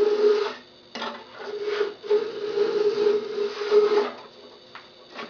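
Hand plane shaving along the edge of a wooden board: three scraping strokes, the last and longest about two seconds, each with a steady hum running under the scrape, then a pause about four seconds in.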